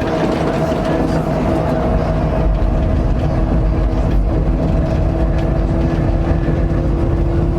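Shuttle bus engine running, with a steady low rumble and a constant whine.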